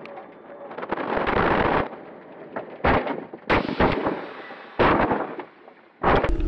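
A vehicle rolling over during a crash test, heard from inside the cabin: a long crunching crash about a second in, then several more loud slams as the body strikes the ground again and again, about three and a half and five seconds in.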